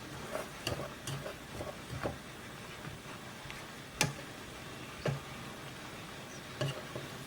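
Kitchen utensil clatter: irregular light clicks and knocks of utensils against cookware, with one sharper knock about four seconds in.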